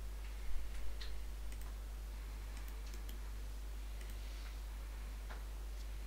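Computer mouse clicks: a scattered series of short, light clicks while menus and dialogs are opened, with the loudest pair about half a second to a second in. A steady low electrical hum lies underneath throughout.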